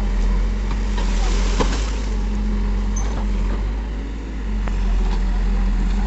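Backhoe loader's diesel engine working under load as the backhoe digs out roots, its engine note shifting as the load changes. A few sharp knocks and cracks from the bucket tearing at the roots and stalks, the clearest about a second and a half in.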